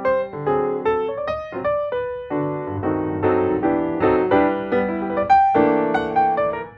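Background piano music: a light keyboard melody over chords, many short notes in succession.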